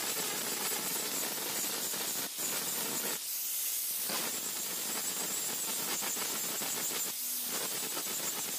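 Electric angle grinder with an abrasive disc grinding the steel of a knife blade made from a brush-cutter blade: a steady harsh hiss over a high motor whine. The grinding noise thins out briefly about three seconds in and again about seven seconds in, while the whine goes on.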